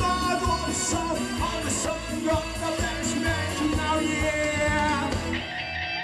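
Male trot singer singing into a handheld microphone over an upbeat accompaniment with a steady beat.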